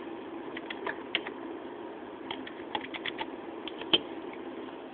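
Typing on a computer keyboard: irregular short runs of key clicks over a steady low hum, heard dull through a mobile phone's microphone.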